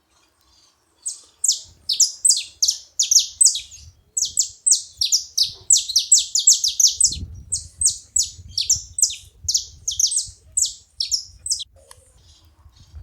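Saffron finches singing: a fast, chattering run of short, sharp high notes, each sliding downward, with a brief pause partway through.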